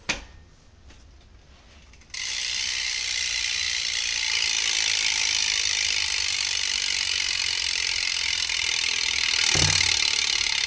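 BMX rear hub (Profile Mini) freewheel ratchet buzzing fast and steadily as the rear wheel spins freely. The buzz starts about two seconds in, after a single click, and there is a brief low thump near the end.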